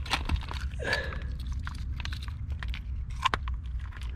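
Shells and stones clicking and crunching irregularly as sea snails are picked up and gathered by hand, over a steady low rumble.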